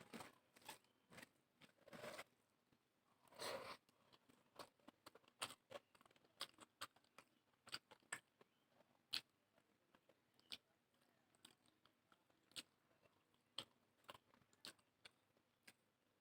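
A person eating close to the microphone: chewing with many short, sharp wet mouth clicks throughout, and a few longer, louder bites in the first four seconds.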